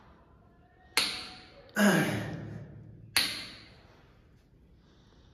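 A man working through dumbbell lateral raises: three sharp sounds about a second and a half apart, roughly one per repetition, each dying away over about a second, with a lower sound falling in pitch on the second.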